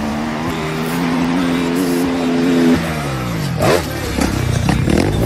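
Dirt bike engine running at steady high revs, then its pitch falls about three seconds in as the revs drop; after that, quick revs that sweep up and down to the end.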